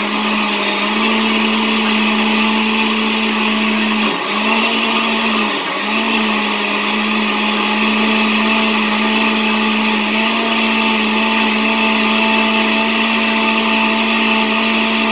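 Oster countertop blender running at speed, puréeing a liquid jerk marinade of scallions, ginger, garlic and hot pepper in orange juice. The motor whir holds steady, with two brief dips in speed about four and five and a half seconds in.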